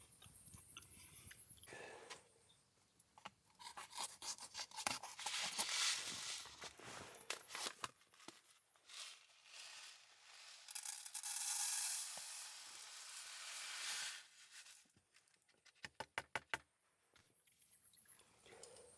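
Rubbing and scraping of things being handled, with a longer hissing rub in the middle and a quick run of about five clicks near the end.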